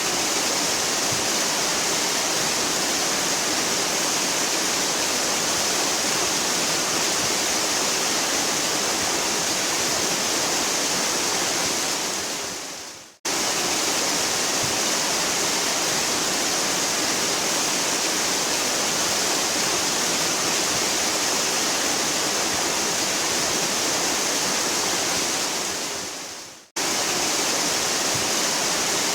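A waterfall rushing steadily, a dense hiss strongest in the high range. Twice, near the middle and near the end, it fades out to silence over about a second and then comes back in abruptly.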